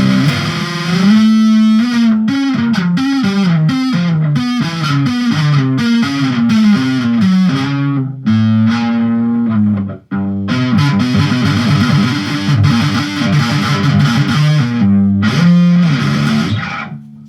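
Distorted electric guitar in drop D tuning, played as fast riffs and runs of short notes. It breaks off for a moment about ten seconds in, then carries on and rings out near the end.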